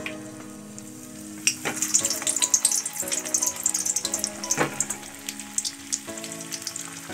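Stuffed pointed gourds (potol) sizzling and spitting in hot oil in a kadai as they are dropped in one by one. The sizzle flares up loudly about a second and a half in as a piece goes in, crackles hard for a few seconds, and spits again with a sharp crack a little after halfway.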